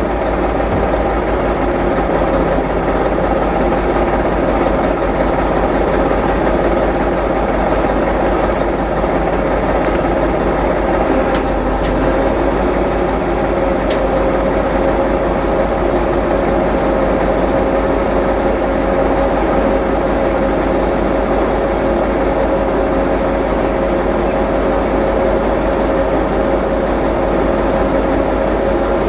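A large vehicle's engine idling steadily, with a constant whine over the low rumble.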